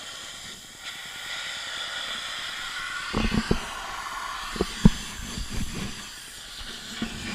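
Pressure washer jet spraying with a steady hiss, broken in the middle by a run of short low thumps, the sharpest about five seconds in.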